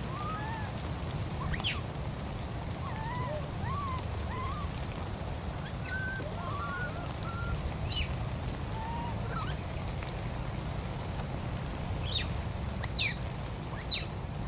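Many short, rising-and-falling squeaky animal calls, sometimes two at once at different pitches, with a few sharp high chirps near the end and a faint steady high whine behind them.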